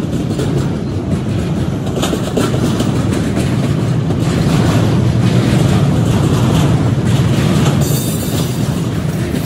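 Double-stack container train's well cars rolling past: a steady rumble of steel wheels on the rails with light clicking over the rail joints, and a brief high wheel squeal near the end.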